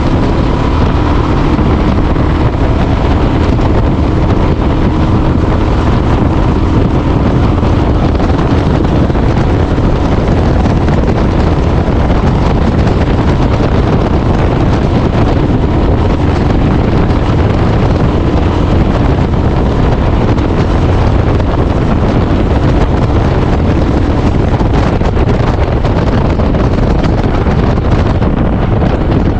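Royal Enfield Himalayan's single-cylinder engine running through a Red Rooster aftermarket performance exhaust while the bike is ridden, a steady exhaust note with wind buffeting the microphone.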